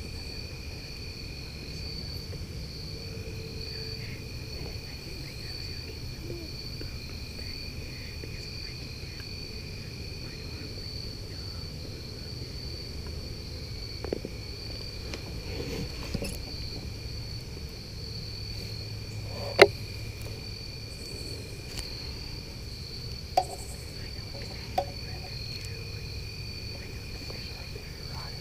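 Steady chorus of crickets, two high unbroken pitches over a low background rumble, broken by a few sharp clicks, the loudest about two-thirds of the way through.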